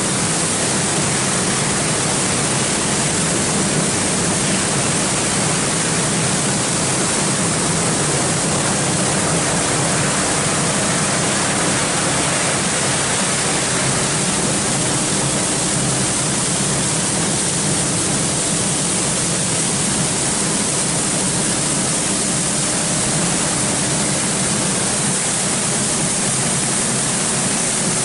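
Tammermatic UltraLux rollover car wash spraying water at high pressure onto a car: a loud, steady hiss of jets, with a faint steady hum beneath.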